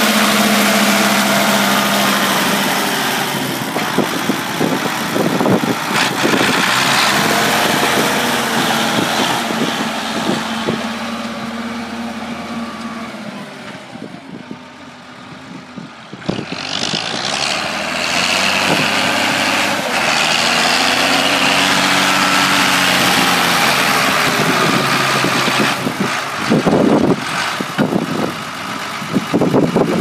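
Ford 8210 tractor's six-cylinder diesel engine running under load while it pulls a reversible plough. It is loud close by and grows fainter toward the middle as the tractor works away across the field. It comes back loud over the last part.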